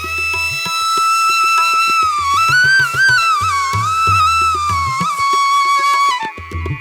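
Background music: a flute melody with long held notes that bend and wander in the middle, over low drum beats.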